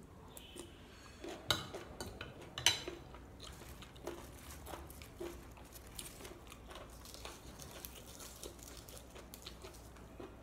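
Metal fork and spoon clinking against a ceramic plate, two sharp clinks within the first three seconds, then soft chewing of a glass-noodle salad with small clicks.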